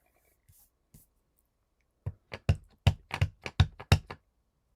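A stamp being tapped quickly and repeatedly on an ink pad to ink it: about ten sharp taps over two seconds, after a couple of faint clicks.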